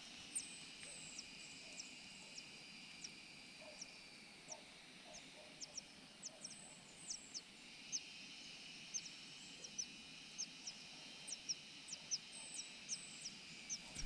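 Large niltava nestlings begging at the nest: short, thin, high chirps that drop in pitch, repeated irregularly at one to a few a second and coming more often toward the end, over a steady background hiss.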